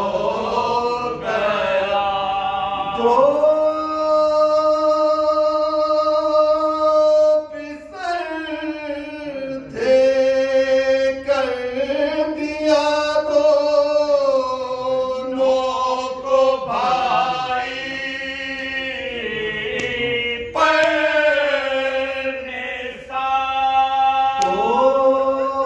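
Men's voices singing an unaccompanied Urdu soz, a mournful devotional elegy: a lead reciter with two others joining in unison, in long held notes with wavering ornaments and short breaks between phrases.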